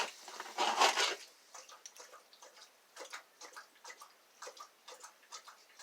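Light metallic clicks and scratches of a lock pick and tension tool working in the keyway of an Abus 888 lock, irregular and faint, after a brief rustle of handling near the start.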